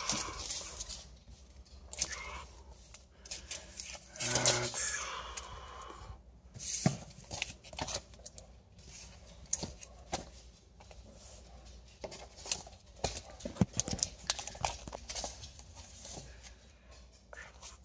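Comic books being handled and laid out: irregular rustling and crinkling with scattered light taps, and a louder rustle about four seconds in.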